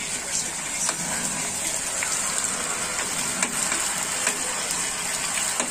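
Sliced potatoes sizzling in hot oil in a nonstick frying pan, a steady hiss, with a few light taps of a metal spatula stirring them.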